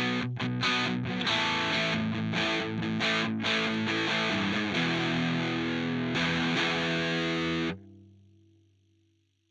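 Electric guitar played through a TC Electronic Mojo Mojo overdrive pedal, with overdriven chords and riffs. Near the end the playing stops abruptly, leaving a faint low note that fades out.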